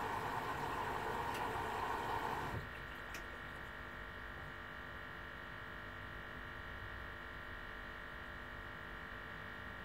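Two Beko front-loading washing machines mid-cycle: a steady hiss of water flowing in stops abruptly about two and a half seconds in, leaving the machines' quieter steady hum.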